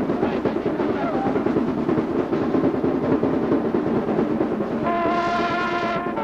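Dense crowd chatter, then about five seconds in a brass band strikes up with a long held chord.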